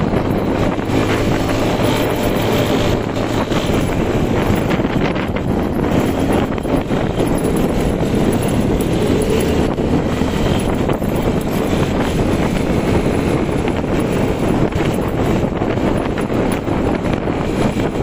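Beker Cross 150cc motorcycle engine running under way, mixed with steady wind noise buffeting the microphone.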